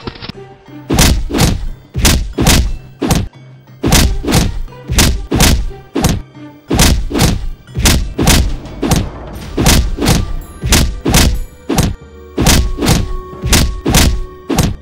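A rapid series of heavy cartoon fight impact sound effects, about two thuds a second with a few short pauses, over background music.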